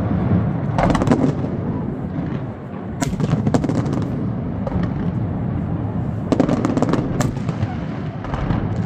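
Fireworks going off: clusters of sharp bangs and crackles about a second in, around three seconds in and again around six to seven seconds in, over a steady low rumble.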